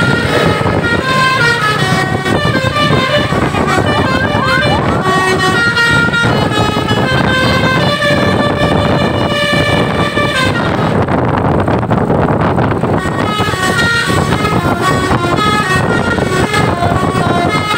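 Bus's Basuri telolet multi-tone air horn playing a melody of held notes that step up and down almost without pause. About ten seconds in, the tune breaks off into a rushing noise for two or three seconds, then resumes.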